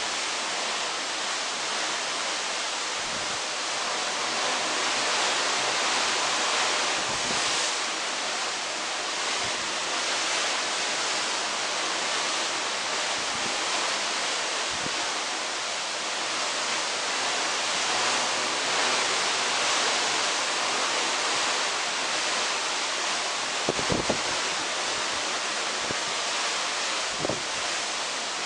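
Steady rush of sea and wind heard from a cruise ship's balcony while under way, with wind buffeting the microphone in a few low thumps near the end.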